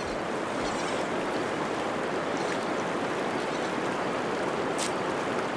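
Fast river water rushing steadily over the rocks of a freestone riverbed.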